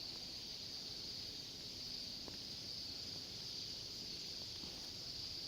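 A large flock of small birds calling all together: a continuous high-pitched massed trilling chorus.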